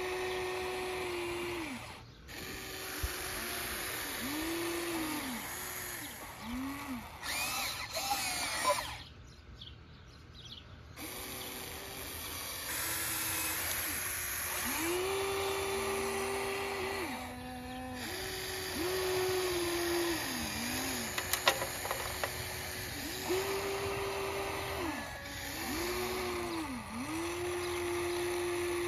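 Huina 1594 RC excavator's electric motors whining in short spells, each rising, holding and falling as the boom, arm, bucket and swing are worked. Gravel clicks now and then under the bucket, with a brief lull about nine seconds in.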